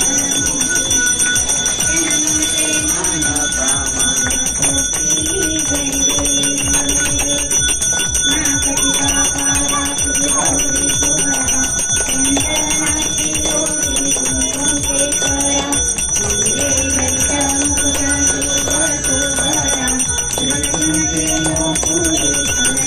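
Puja bell rung rapidly and without pause during an aarti, its ringing held steady throughout, over a slow sung aarti melody.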